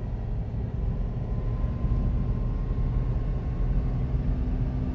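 Jeep Wrangler TJ driving in low-range four-wheel drive through deep snow, heard from inside the cab: a steady low rumble of engine and drivetrain with a faint steady whine above it.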